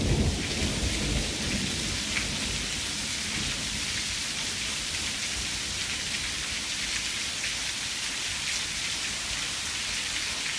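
Heavy rain pouring down in a thunderstorm, a steady downpour hiss. A low thunder rumble dies away in the first second.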